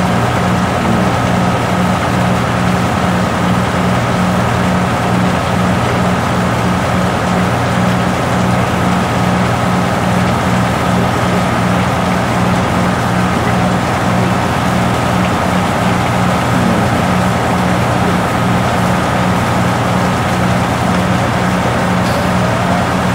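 Heavy diesel engines idling steadily: a constant low drone with an even throb and a thin steady whine above it.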